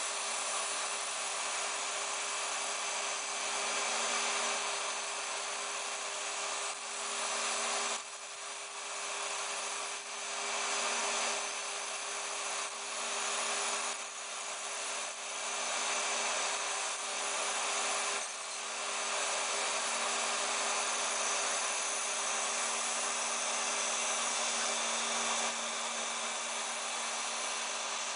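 A home-built CNC router's motor spindle running steadily with a steady hum as its end mill cuts Depron foam, over a loud hiss from a vacuum nozzle sucking up the chips. The sound dips briefly a few times as the cut changes.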